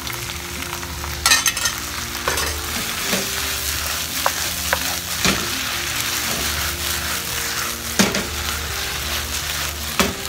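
Blanched lettuce and garlic sizzling in a frying pan over high heat as the seasoning sauce cooks in, stirred with a wooden spatula. There are several sharp knocks as the food is stirred and the pan tossed.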